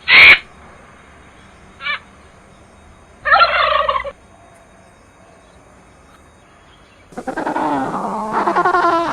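Birds calling: a loud harsh call at the start, a faint one about two seconds in, a short warbling call a little after three seconds, then from about seven seconds a long run of loud, wavering cries.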